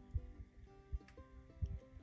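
Quiet background music: held notes over soft low beats, about one every 0.7 seconds.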